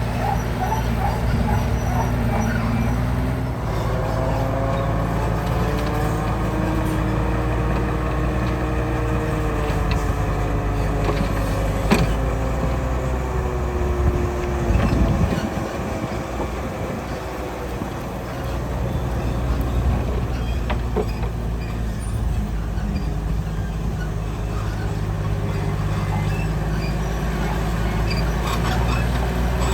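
Heavy diesel engine of earth-moving machinery running steadily with a deep rumble. A whining tone joins it about four seconds in and cuts off suddenly about halfway through, after which the rumble briefly drops.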